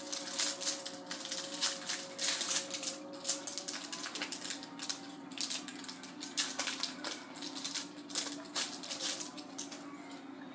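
An Upper Deck hockey card pack being opened by hand: its wrapper crinkles and crackles in dense, irregular bursts that die away near the end.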